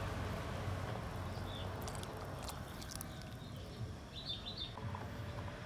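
A few faint, quick bird chirps about four seconds in, with a fainter one earlier, over a low steady background noise.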